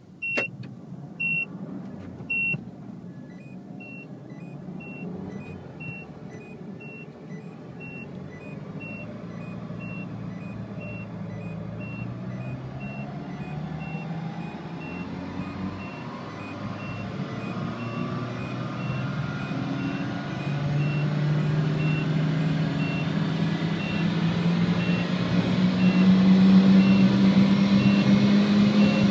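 A tuned Citroën DS3 Racing's turbocharged 1.6 four-cylinder pulling hard through the gears, heard inside the cabin. The engine's pitch climbs in each gear and it grows louder toward the end. Over it, a dashboard warning chime beeps at a steady pace, a bit more than once a second.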